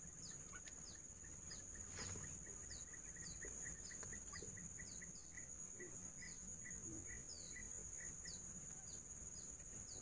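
Steady high-pitched insect buzz, like a cricket chorus, with a run of short, quick falling chirps repeated about twice a second.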